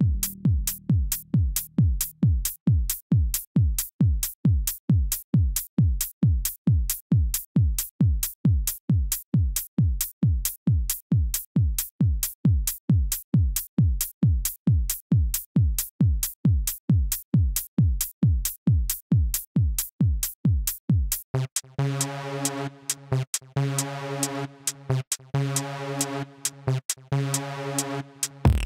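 Tech house DJ mix: a bare four-on-the-floor drum-machine kick, about two beats a second. About twenty seconds in the kick drops out and a sustained synth chord comes in, chopped into rhythmic stutters.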